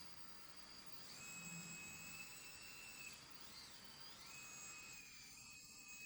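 Faint whine of a 1/14-scale Liebherr 914 RC excavator's hydraulic pump. It steps up in pitch about a second in, drops back around three seconds, and rises again about four seconds in as the machine's functions are worked.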